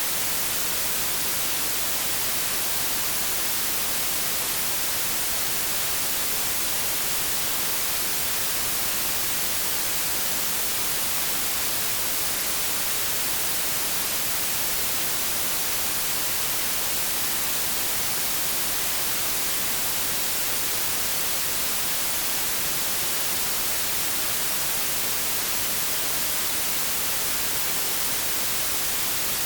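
Steady white noise, an even hiss with no changes, strongest in the highest frequencies.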